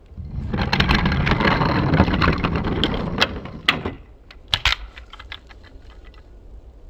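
Wooden toy trains running down raised wooden track, their wheels rattling and clattering for about three and a half seconds, followed by scattered sharp clicks and knocks.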